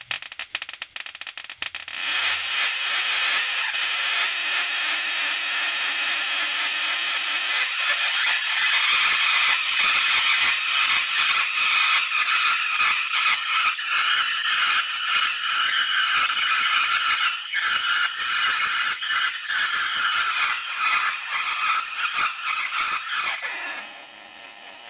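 ZVS-driven Tesla coil throwing arcs: a loud crackling hiss of spark discharge, drawing about 6 amps. It opens with scattered snaps for a couple of seconds, then settles into a steady dense crackle that eases near the end and cuts off.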